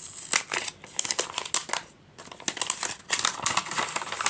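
Sticker sheets and their packaging crinkling and rustling as they are handled, a run of quick crackles with a short lull about two seconds in.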